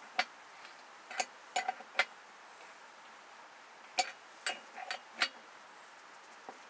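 About ten short, sharp clicks and snaps at irregular intervals over a faint steady hiss, with a quiet gap in the middle.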